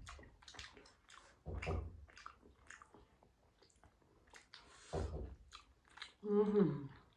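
Close-miked chewing and wet mouth smacks from people eating momo dumplings, with scattered soft clicks. About six seconds in comes a short vocal sound that falls in pitch, like a hum.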